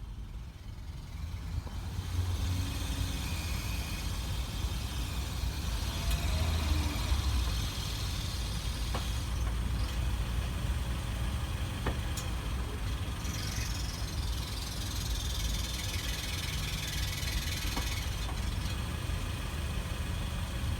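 Mitsubishi ASX heard from inside, a steady low rumble of engine and road with a high hiss over it, building up over the first two seconds. The hiss is the whistle from under the floor that the car is being recorded for.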